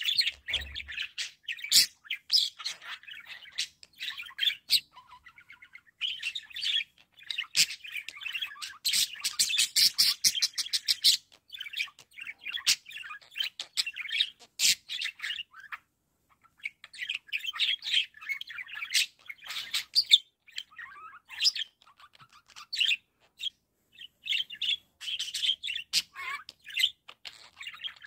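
Budgerigar warbling and chattering: a fast, varied stream of chirps, clicks and squawky notes in bouts with short pauses, with a dense run of rapid clicks about a third of the way through.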